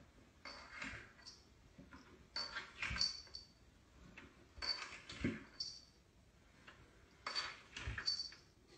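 A cat's body sliding and bumping down wooden stair steps. Four short scuffs of fur and paws on the wood come about every two and a half seconds, some ending in a soft thump.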